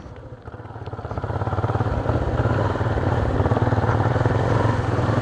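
Motorcycle engine running, getting louder over the first couple of seconds and then holding a steady pitch.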